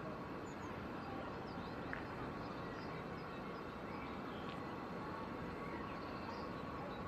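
Steady low background noise with faint, scattered bird chirps and a faint steady tone underneath.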